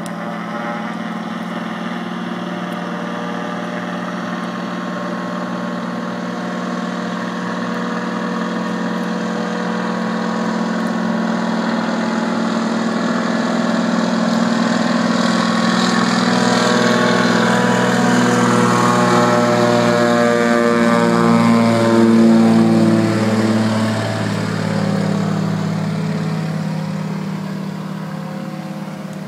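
De Havilland Beaver floatplane's engine and propeller at takeoff power during its run across the lake, growing louder as it approaches. A little past two-thirds of the way through it is loudest and the pitch drops as it goes by, then the sound fades away.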